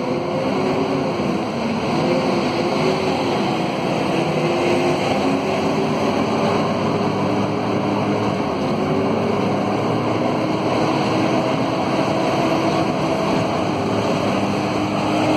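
Scania K230UB city bus under way, heard from inside the passenger cabin: its Scania DC9 diesel engine and road noise, with a howling whine that slowly rises in pitch and dips briefly about nine seconds in. The uploader puts the howl down to the radiator cooling fan.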